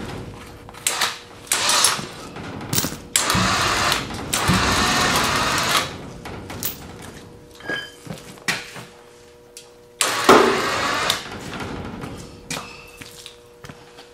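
Irregular metal clanks, rattles and scraping from winch cable and chain rigging being handled on a concrete floor, with a faint steady hum underneath.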